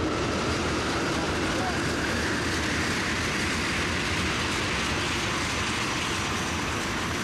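A train going by: a steady, dense rumble of rail and wheel noise with no letup.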